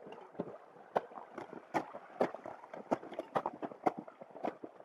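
Footsteps on glacier ice: a quick, uneven run of sharp crunching clicks, about two or three steps a second.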